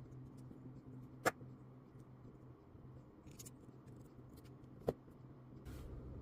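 Razer Basilisk V3 Pro gaming mouse being clicked: two sharp single button clicks about three and a half seconds apart, with faint light ticks between them.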